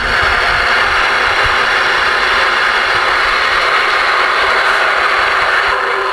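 Galaxy DX-47HP ten-meter radio's receiver hissing steadily through its speaker, an even rush of static with the squelch open; it comes on suddenly.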